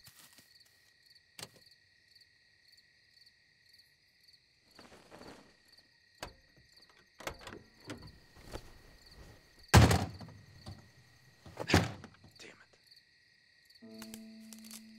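Crickets chirping steadily at night, with scattered soft knocks and two loud thuds a couple of seconds apart past the middle. A low steady hum comes in near the end.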